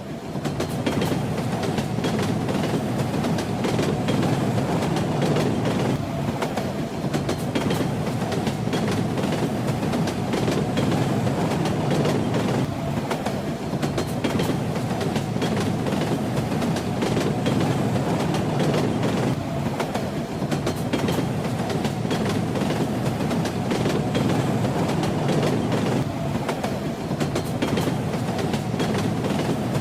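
Railway carriage running at speed: a steady rumble with the clickety-clack of the wheels over the rail joints.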